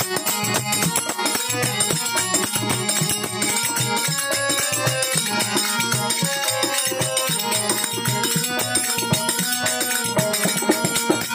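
Devotional bhajan music: a harmonium playing a melody over a steady hand-played beat on a double-headed barrel drum (dholak), with small brass hand cymbals keeping time.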